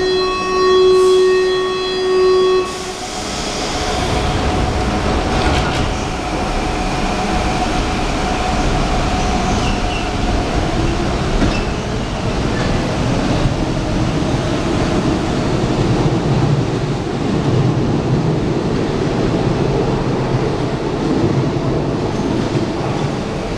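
A subway train's horn sounds as one steady tone for about the first three seconds. The train then runs past the platform with a continuous loud rumble of wheels on rails.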